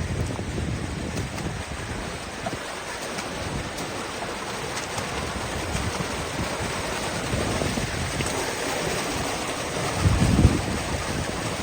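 Steady rush of flowing creek water and falls in a slot canyon, with wind buffeting the microphone. A brief low thump comes near the end.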